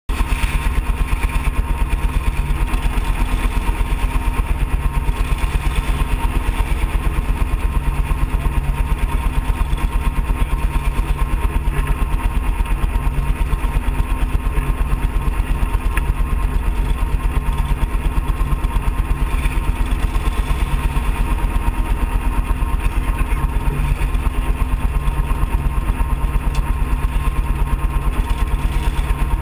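Off-road kart engine idling steadily with a fast, even throb.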